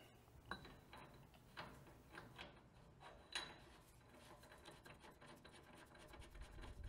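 Faint metallic ticks and light scraping from a spindle nut being spun by hand onto a 14-bolt full-floating rear axle spindle with a spindle nut socket. The clicks are scattered and irregular, a few sharper than the rest.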